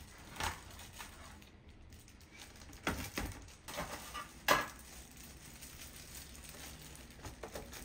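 Raw blue crab shells knocking and clattering against a stainless steel tray and a clear plastic storage container as the crabs are handled and laid in. A few scattered sharp knocks, the loudest about halfway through.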